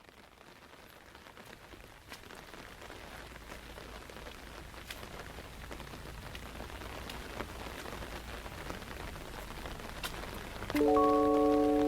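Rain pattering on a surface, an even hiss with scattered sharp drop clicks, fading in and growing steadily louder. Sustained musical notes come in near the end.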